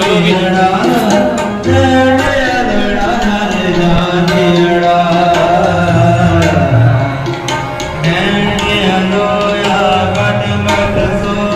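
Sikh kirtan: a harmonium and tabla accompanying a sung hymn, with the tabla's deep bass strokes sounding now and then.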